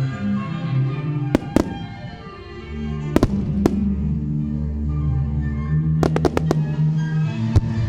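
Aerial firework shells bursting with sharp bangs: a pair, another pair, then a quick run of about five and a single one near the end. Music with slow sustained notes plays underneath.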